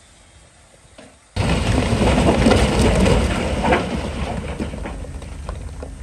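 A load of rock crashing and sliding off a tipping dump truck's bed: a rumble with clattering stones starts suddenly about a second in, then fades over the next few seconds.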